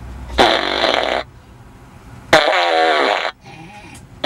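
Remote-controlled Boom Box Blaster fart machine playing recorded fart sounds through its speaker, twice. Each lasts about a second, starting sharply with a pitch that wavers and falls.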